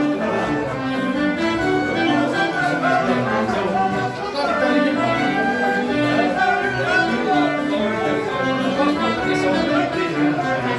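A live folk band playing a contradança, a Portuguese country dance tune, with a stepping bass line under the melody.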